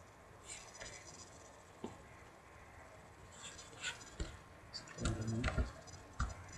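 A few soft computer-mouse clicks and scroll-wheel ticks in a quiet room, with a short, low voiced hum about five seconds in.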